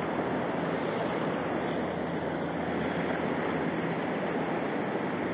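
Steady rushing of flowing river water, with a faint low hum underneath.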